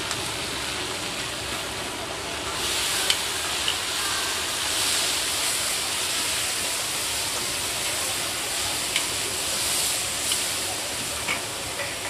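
Sliced meat sizzling in hot oil in a large aluminium wok as it is stir-fried, the hiss growing louder a few seconds in. About six sharp clinks of metal spatulas striking the wok are scattered through it.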